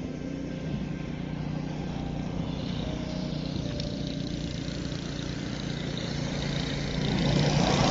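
A motor vehicle running, with a steady low engine hum under road noise that grows louder near the end and then cuts off abruptly.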